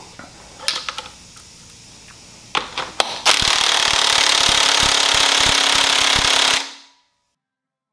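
A few clicks and knocks as a cordless impact wrench is set on the crank pulley bolt, then the impact wrench hammers loudly for about three seconds, tightening the bolt, and stops abruptly.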